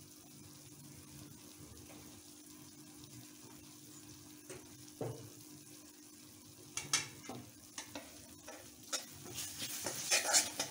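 Onions and ginger-garlic paste frying in oil in a metal wok, with a faint, steady sizzle. After about seven seconds, a metal spatula starts scraping and stirring against the pan in irregular strokes that come louder and more often toward the end.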